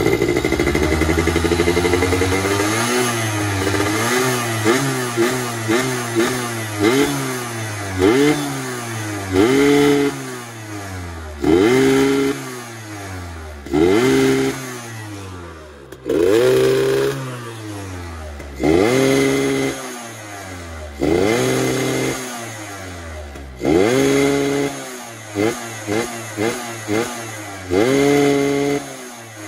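Yamaha F1ZR two-stroke single-cylinder engine being revved with the throttle, its carburettor being tuned for the raspy 'ngorok' note. It starts with the revs held high, then quick short blips about twice a second. Later come bigger surges every couple of seconds, the revs climbing sharply and dropping back each time.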